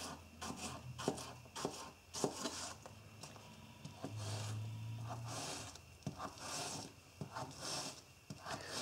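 Spyderco Native 5 folding knife slicing through apple and knocking on a plastic cutting board: irregular short knocks with soft scraping cuts between them. A brief low hum sounds a little past the middle.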